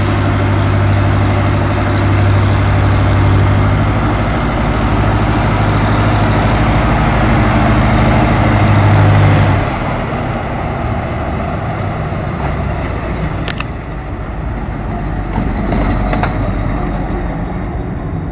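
SerFer K075 shunting locomotive's IVECO diesel engine running with a strong steady low drone that drops away about ten seconds in. After that a high whine falls slowly in pitch over a few seconds, with two sharp clicks.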